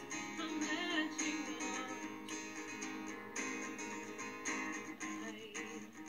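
Steel-string acoustic guitar strummed in a steady, even rhythm, accompanying a ballad. A woman's voice sings a few notes in the first second.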